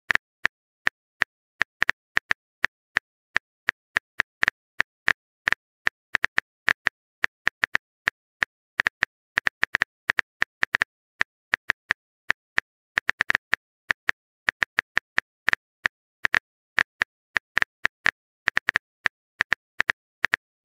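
Simulated phone keyboard typing: short, sharp key-tap clicks, a few each second at an uneven pace, with silence between them.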